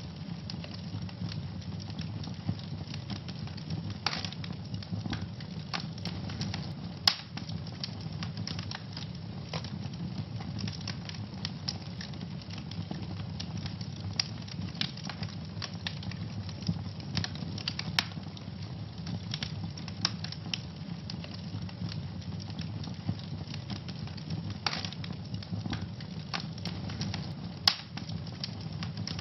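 Wood fire burning in a fireplace: a steady low rumble of flames with constant irregular crackling and popping, a few sharper snaps standing out.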